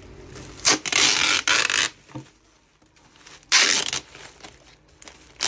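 Clear plastic packaging bag and bubble wrap rustling and crinkling as they are handled, in three bursts: a long one about a second in, a shorter one past the middle, and a brief one at the end.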